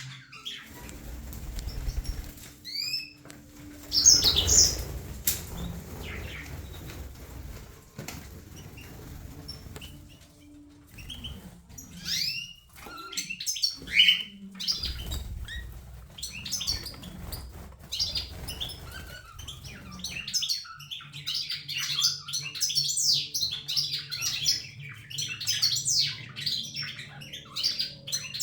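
Cockatiel chirping in short, scattered calls and quick whistled glides, with bursts of low rustling noise in between; from about two-thirds of the way through the chirping turns dense and continuous.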